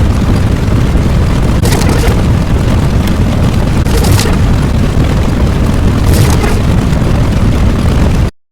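Loud, continuous rumbling explosion-type sound effect, with a brighter crackling burst about every two seconds. It cuts off abruptly into silence just before the end.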